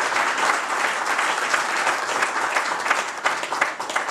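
Audience applauding, dense at first, then thinning to scattered separate claps near the end.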